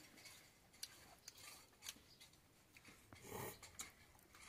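Near silence with faint small clicks and taps of a man eating by hand, and a brief louder rustle about three seconds in.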